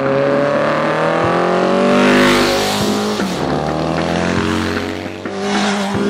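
Classic racing motorcycle engines passing close by on the road, one after another: the engine note climbs as each bike approaches and drops as it goes past. Loudest about two seconds in, with another bike coming up near the end.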